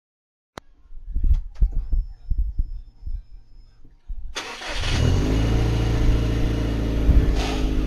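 A click and a run of irregular low thumps, then about four seconds in a car engine starts and runs steadily.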